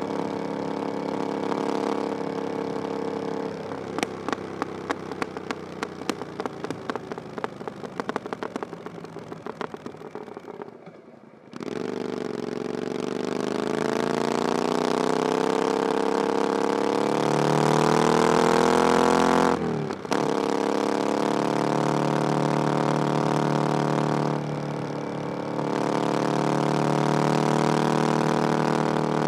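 Triumph Bonneville Scrambler 900's 900cc parallel-twin engine through aftermarket 'VW' pipes. It runs steadily at first, then pops and crackles as the revs fall on a closed throttle, and dips briefly about eleven seconds in. It then pulls hard with a steadily rising pitch, breaks for a quick gear change near twenty seconds, and settles into a steady cruise.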